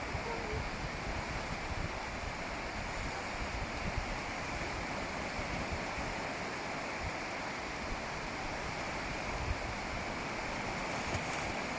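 Ocean surf washing onto a beach, a steady rush of breaking waves, with wind buffeting the microphone in the low end.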